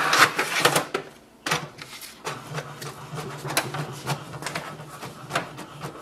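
HP DeskJet 3700 inkjet printer printing a page: a steady mechanical hum of the paper feed and print carriage, with clicks now and then. In the first second it is preceded by plastic clattering as the printer's output tray is pulled open.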